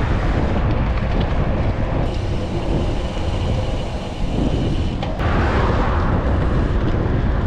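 Wind rumbling on the microphone of a moving bicycle, with road and traffic noise; the noise swells about five seconds in.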